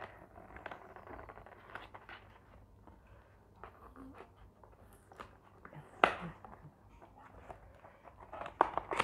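Cardboard takeaway food box being opened by hand: scattered rustling and small clicks as the flaps and tabs are worked loose, with a sharper snap about six seconds in and a few more near the end.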